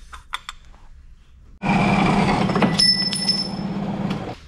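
A few light metal clinks of bar stock being handled, then about a second and a half in a horizontal metal-cutting bandsaw starts running loud, cutting through 16 mm square bar, with a steady hum and high metallic ringing from the blade. It stops abruptly near the end.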